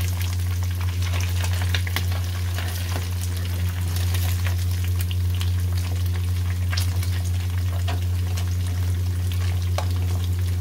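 Indian mackerel frying in hot oil, a steady sizzle with many scattered sharp pops and crackles of spitting oil, over a steady low hum. The fish has just been turned, when the oil spits most.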